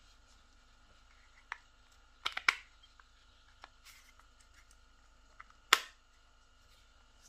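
Sharp plastic clicks and taps as the clear plastic housing and parts of a Gamma+ Ergo hair clipper are handled. There are about five in all, the loudest a quick double click about two and a half seconds in and a single click near the end.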